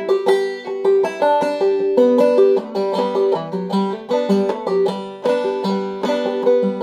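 Solo five-string banjo played clawhammer style in standard G tuning: a steady stream of plucked notes in a Québécois fiddle reel, with one high note coming back again and again between the melody notes.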